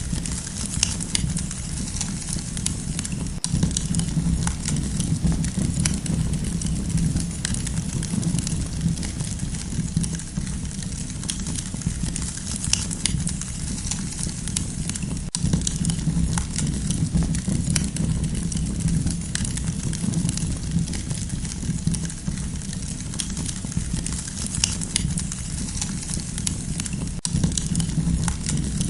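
Campfire burning with a steady low rumble and frequent small crackles and pops.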